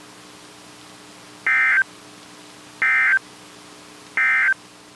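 Emergency Alert System end-of-message (EOM) code: three short, identical screeching bursts of two-tone digital data, sent about a second and a half apart, marking the end of the warning broadcast. A faint steady hum lies underneath.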